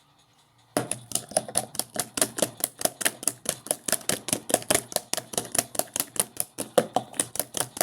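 Rapid, even clicking or tapping, about six sharp clicks a second, starting suddenly under a second in and going on steadily.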